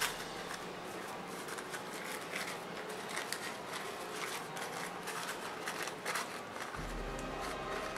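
Thin paper napkin crinkling and rustling as fingers press and fold it, a run of small irregular crackles.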